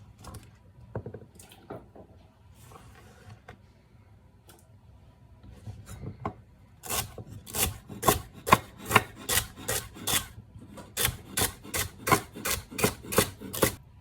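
Rasping, scraping strokes from kitchen work: a few scattered scrapes, then from about halfway a steady run of strokes, two or three a second, with a short pause in the middle.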